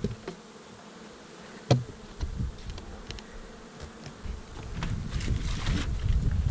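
Honeybees buzzing around open hives. A sharp knock of hive woodwork comes about two seconds in, and more clatter and rumbling of hive parts being handled follows near the end.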